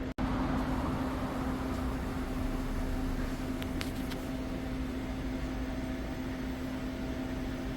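2008 Hyundai Avante's engine running with the air conditioning on, a steady hum with a constant tone; the compressor is turning but the system is out of refrigerant. A few faint ticks come about halfway through.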